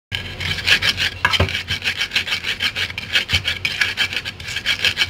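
Wooden pestle grinding garlic, salt and white peppercorns on a cobek (flat mortar), crushing them into spice paste. Fast rasping strokes, about four a second, with a couple of dull knocks. The sound starts abruptly.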